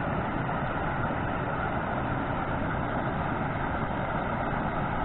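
Steady rushing of water pouring down the channel that salmon are climbing up to the hatchery.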